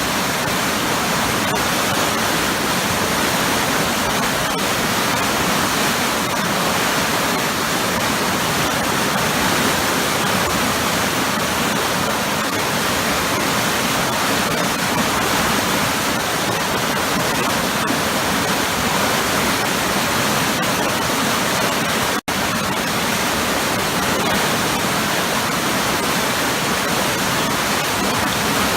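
Waterfall crashing into a churning pool: a loud, steady rush of water that cuts out for an instant about three-quarters of the way through.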